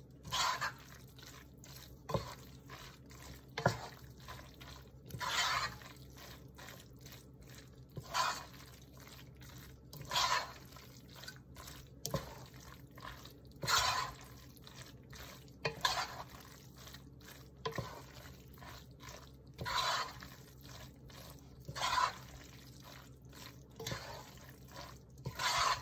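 A spoon stirring egg noodles through a thick cream-of-mushroom sauce in a stainless steel pot: wet stirring strokes about every two seconds, with an occasional knock of the spoon against the pot.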